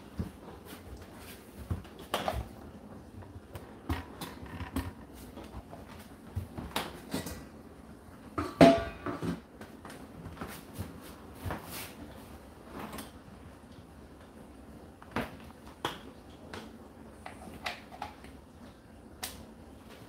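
Indesit IDC8T3 condenser tumble dryer running, its drum turning with laundry falling inside: irregular knocks and clicks over a steady low hum, the loudest knock a little before halfway.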